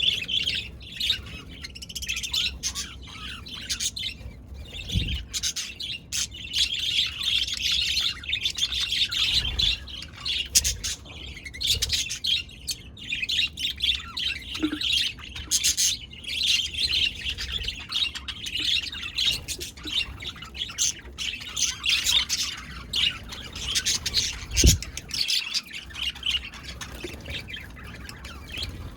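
Budgerigars (budgies) chirping and warbling in a continuous, busy chatter of high chirps with the odd squawk. A few dull low bumps come through, the loudest a little before the end.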